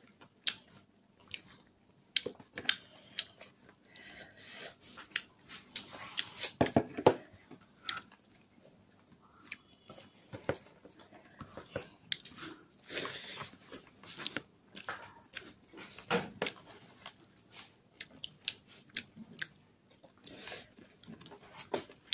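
A person chewing and smacking while eating rice and chicken curry by hand. The sound comes as irregular short, sharp clicks and smacks.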